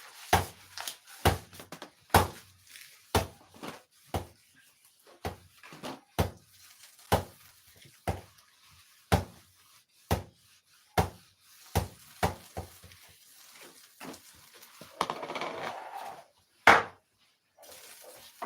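Kitchen clatter from dishes and utensils: a run of sharp knocks about once a second, then a short rustling noise and one loud clack near the end.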